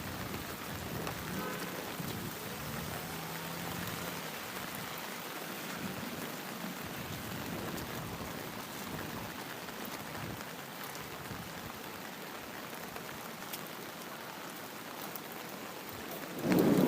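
Steady rain falling, an even hiss of drops on surfaces. Near the end a sudden, louder sound cuts in over it.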